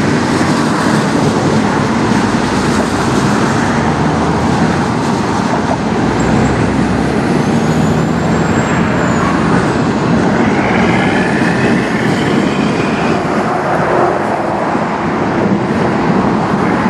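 Freight cars of a manifest train rolling past: a steady loud rumble of steel wheels on the rails, with faint high squeals around ten seconds in.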